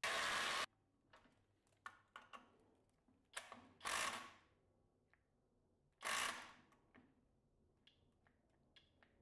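Flex cordless impact driver running loud, stopping abruptly within the first second, then three brief bursts and scattered clicks as its small 2.5 Ah battery overheats.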